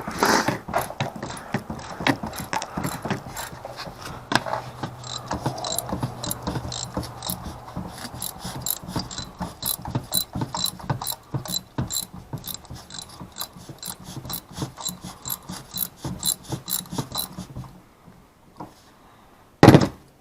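Ratchet wrench clicking rapidly as it backs out a spark plug, the plug loosening. The clicking stops a couple of seconds before the end, followed by a single loud knock.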